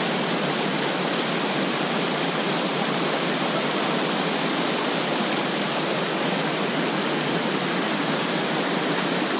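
Small waterfall pouring into a plunge pool, with water spilling over low rock ledges in the foreground: a steady, unbroken rush of falling water.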